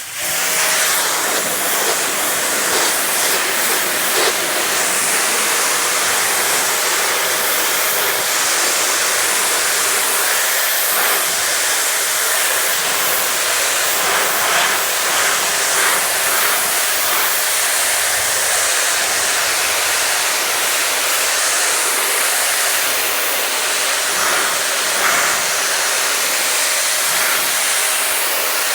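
Ryobi 2000 psi electric pressure washer running steadily, its high-pressure water jet hissing as it sprays, with a faint steady motor whine underneath.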